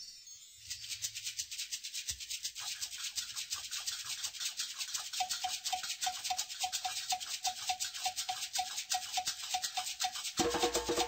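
Background music led by a fast shaker rhythm. A short repeated note joins about halfway, and bass and fuller instruments come in near the end.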